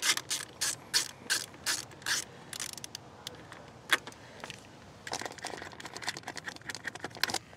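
Sharp clicks of a nut driver and ring-terminal wires working on the studs of a trailer wiring junction box, about three a second at first. A quicker flurry of clicks comes near the end as a nut is run down onto a stud.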